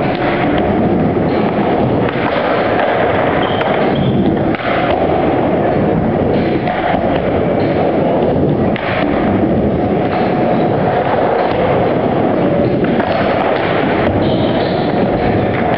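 Skateboard wheels rumbling steadily back and forth across a mini ramp, with sharp knocks every couple of seconds as the board and trucks hit the coping on tricks.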